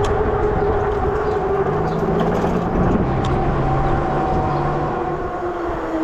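ANIIOKI A8 Pro Max electric bike riding at speed under motor power: a steady motor whine over wind and road noise on the microphone. The whine eases lower in pitch near the end, and a lower drone joins it for a few seconds in the middle.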